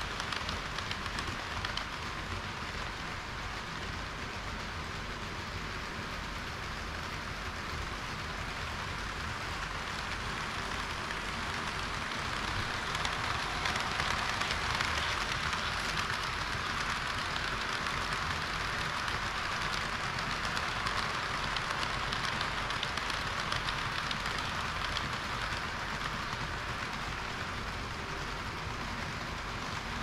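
HO-scale model trains rolling over sectional roadbed track: a steady rattling hiss of wheels and motors, louder in the middle as a long train of tank wagons passes close by.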